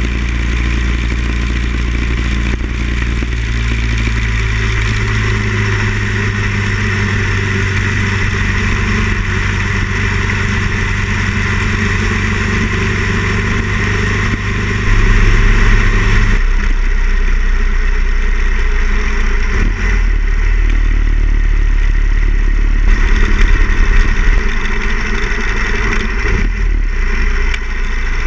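Harley-Davidson Ironhead XL1000's air-cooled V-twin engine running under way on the road, with wind rushing past. The engine note holds steady, then shifts about halfway through and varies after that.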